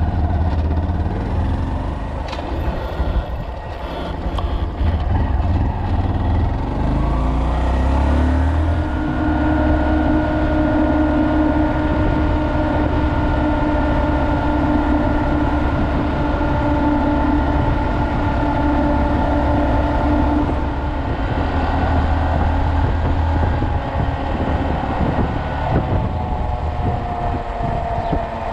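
2020 Honda Monkey's 125 cc single-cylinder engine pulling away, its pitch climbing in steps as it runs up through the gears, then holding a steady cruise. Wind rumbles on the microphone throughout, and the engine pitch slides down near the end as it eases off.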